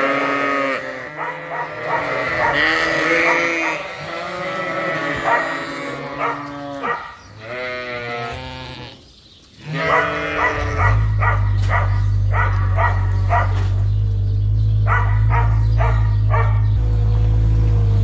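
A flock of black-faced Suffolk ewes bleating, many calls overlapping, hungry at feeding time. About ten seconds in, the steady low rumble of a skid-steer loader's engine joins and runs under the last few bleats.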